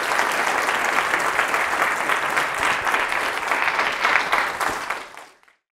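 Audience applauding, a dense patter of many hands clapping that fades out shortly before the end.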